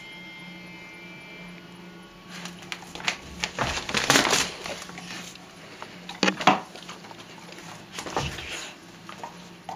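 Bull terrier playing roughly with a toy: several bursts of scuffling, rustling and thuds, the longest a couple of seconds in, then shorter ones around six and eight seconds in.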